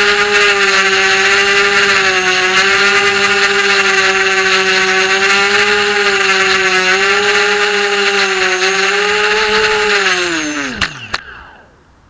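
FPV racing quadcopter's brushless motors whining steadily with slight pitch wobbles, then winding down sharply about ten seconds in, with two sharp knocks as the motors stop.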